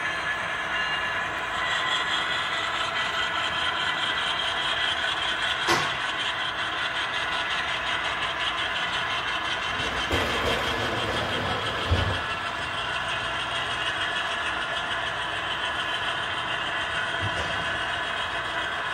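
Model train rolling steadily past, its cars' wheels running on the track, with a sharp click about six seconds in and two low knocks near the middle.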